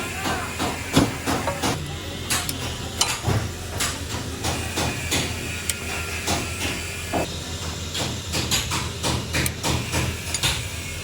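Irregular clicks and light knocks of hand tools on car parts during workshop repair work, over a steady low hum and a faint hiss.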